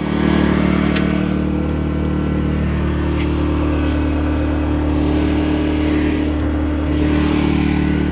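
Genmax 2200i gasoline inverter generator running steadily in an enclosed generator box, a constant engine hum, with one brief click about a second in. It keeps running because its carbon monoxide sensor is taped over and no longer shuts it off.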